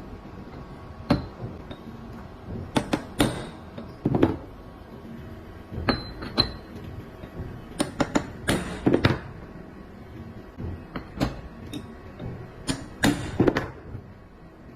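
Metal parts of an Ingersoll Rand 285B air impact wrench clinking and knocking as they are handled and worked on by hand. The sharp clacks come irregularly, often two or three close together.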